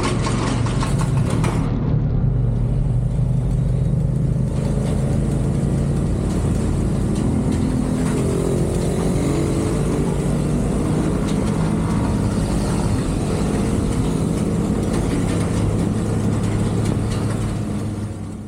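CFMoto 450SR's parallel-twin engine running while the bike is under way, over steady wind and road noise. The engine pitch climbs about halfway through as the bike picks up speed, and the sound fades out at the very end.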